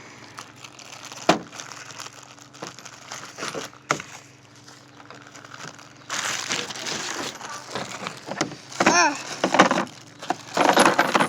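Packaging being opened and unpacked by hand: plastic and wrapping crinkling and rustling, with sharp clicks and knocks. The handling gets busier about halfway through.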